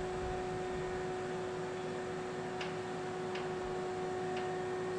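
Liebherr LTM 1650-8.1 mobile crane running, a steady mechanical hum with a constant whine, during the raising of its boom. Three short sharp ticks come in the second half, about a second apart.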